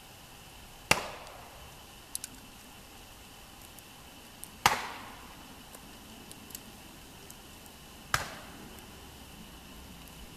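Wood being chopped with an axe: three single sharp strikes, about three and a half seconds apart, each followed by a brief echo.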